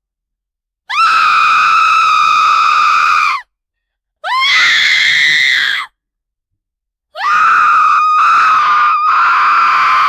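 A woman screaming in terror: three long, high-pitched screams, each cut off into silence, the third broken twice by short catches of breath.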